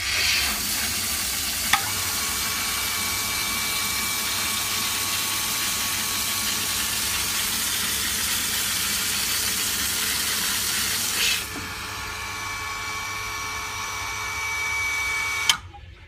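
Mitsubishi WP-105QS water pump running, with water spraying from its outlet in a steady hiss. The hiss drops off suddenly about eleven seconds in, leaving a quieter hiss with a thin steady whine that cuts off near the end.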